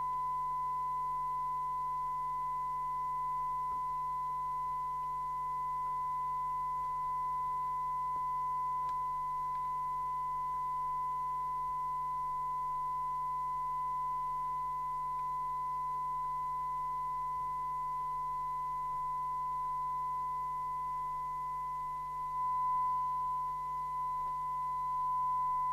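A steady, pure high-pitched tone, like an audio test tone, with a fainter tone an octave above it, holding unchanged. A few faint handling clicks come and go under it.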